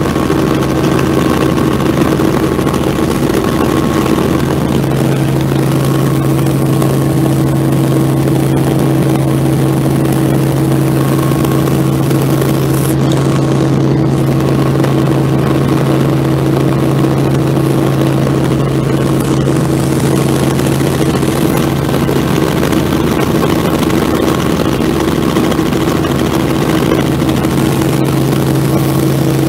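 Robinson R44 helicopter in steady cruise flight, heard from inside the cabin: a loud, even drone of its six-cylinder piston engine and rotors, with a constant low hum.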